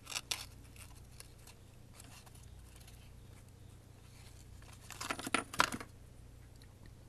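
Small cardboard tube box being opened by hand and a glass 6X4 rectifier tube slid out of its sleeve: a couple of light clicks at the start, then a short cluster of scraping clicks and rustles a little past the middle.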